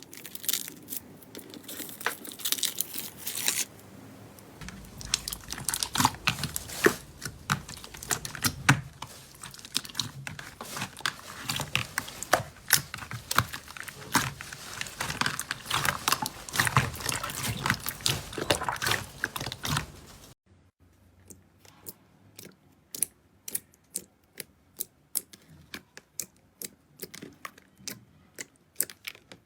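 Slime being squeezed and pressed by hand, making a dense run of crackling clicks and pops. About 20 seconds in it changes to a quieter stretch of separate sharp clicks, two or three a second.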